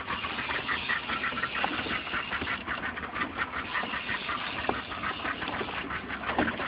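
Fishing reel clicking in a fast, steady rhythm while a barracuda is being fought on the line.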